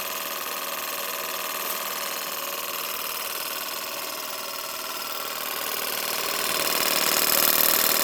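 Restored Stuart model steam engine running steadily, with a steady hiss that grows louder about six seconds in.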